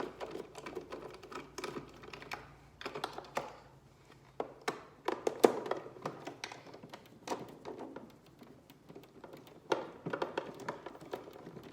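Irregular clicks and light taps of a screwdriver and hard plastic parts of a Philips coffee machine's housing being handled while screws inside the water tank compartment are undone.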